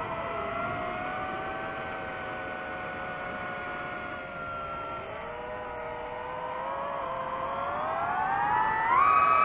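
DJI FPV drone's electric motors and propellers whining, several tones gliding together with the throttle. The pitch dips about half a second in and again around five seconds, then climbs steadily and jumps up near the end, getting louder as it does.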